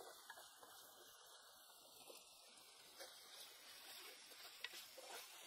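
Wooden spatula stirring chili sauce in a pan, faint: soft scrapes and small crackles over a light hiss.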